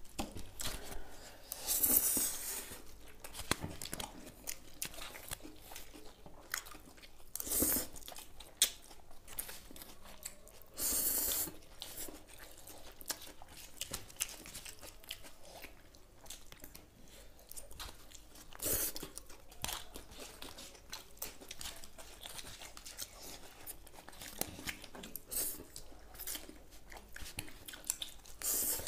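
Two people chewing and crunching mouthfuls of noodles with raw onion, close to the microphone, with small clicks and scrapes of plastic forks on foil plates and several louder brief noisy bursts.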